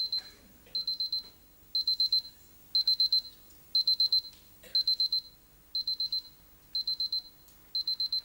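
Electronic alarm clock going off: a high-pitched beep sounding in quick runs of several beeps, repeating about once a second.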